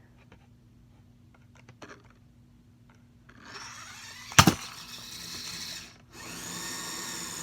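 Small electric motor of a toy whining at high speed in two runs. It starts a little past three seconds in, cuts out briefly near six seconds, and starts again. One sharp crack comes just after four seconds in.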